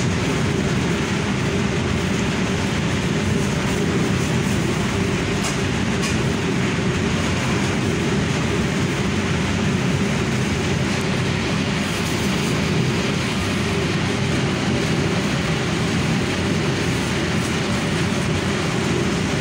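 A loud, steady mechanical drone from commercial kitchen equipment, deep and unbroken throughout, with a couple of faint ticks about five to six seconds in.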